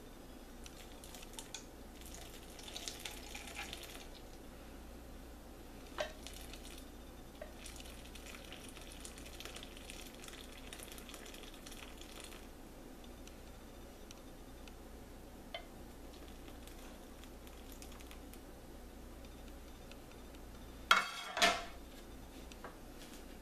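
Hot melted ghee poured from a pan through a cheesecloth-lined mesh strainer into a plastic measuring cup, with a faint pouring hiss in stretches and a few small clicks. Two loud knocks near the end as the pan is taken away from the strainer.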